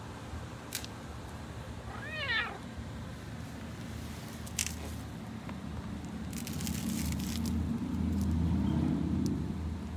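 A gray long-haired cat gives one short meow, rising then falling in pitch, about two seconds in. A low rumble swells through the second half, with a few soft rustles and clicks.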